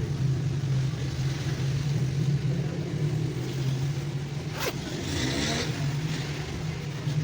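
Steady low mechanical hum, with one sharp click about four and a half seconds in.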